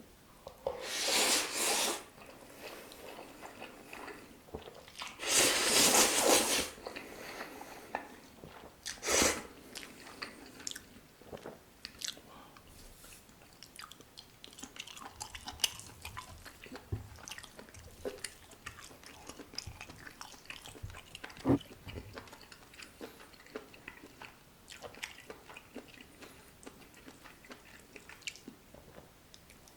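Close-miked eating of carbonara buldak fire noodles with chewy octopus. Two loud, noisy bursts come about one and five seconds in, followed by steady chewing with many small wet clicks.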